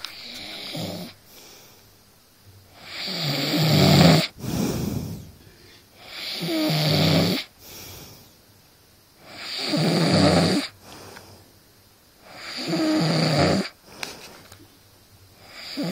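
A man snoring heavily in his sleep: a loud, fluttering snore about every three seconds, each lasting about a second, with quieter breathing between them.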